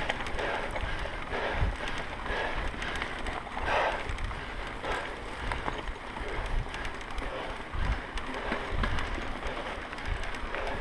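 Mountain bike riding over a rough dirt track, heard close up from the rider's camera: tyres on loose dirt and stones and the bike knocking and rattling over bumps, with wind on the microphone.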